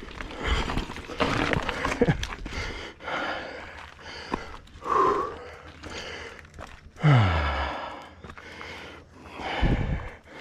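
Mountain bike rattling and knocking over rocks and roots on a dirt singletrack, in uneven surges with wind rushing over the microphone.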